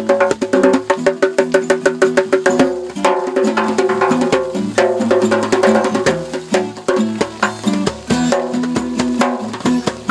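Music: a quick, even rhythm of percussion strokes over a held melody.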